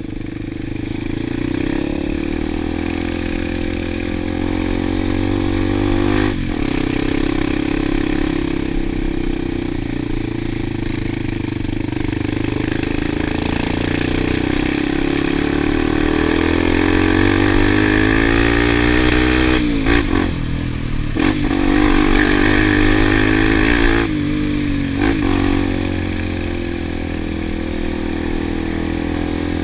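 Single-cylinder dual-sport motorcycle engine running while ridden, its pitch rising and falling with the throttle. It climbs steadily through the middle, then drops sharply a few times near two-thirds of the way through as the throttle is rolled off and back on.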